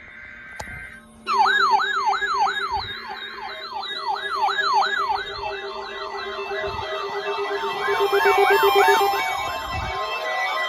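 Several weather alert radios sounding electronic siren alarms at once, set off by a NOAA Weather Radio required weekly test. After a short hiss, overlapping fast yelping sweeps start about a second in, and a slower rising wail joins near the end.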